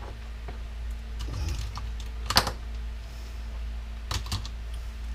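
Small parts from a dismantled RYOBI electric power washer clicking and clinking as they are handled and sorted by hand. The sharpest clack comes about two and a half seconds in, with a couple more around four seconds. A steady low hum runs underneath.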